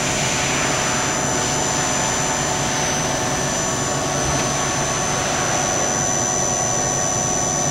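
Kia KIT-30A slant-bed CNC turning center running a short program cycle, giving a steady, quiet, smooth hum with a constant high whine over it.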